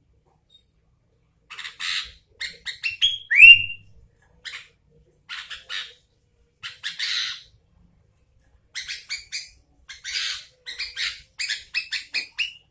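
Sooty-headed bulbul (kutilang) giving harsh, scratchy chattering calls in short bursts, with one loud rising whistled note about three seconds in. After a short pause the chattering comes back in quicker runs near the end.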